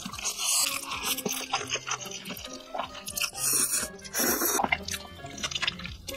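Noodles being slurped in a few loud bursts, with wet chewing between them, over background music.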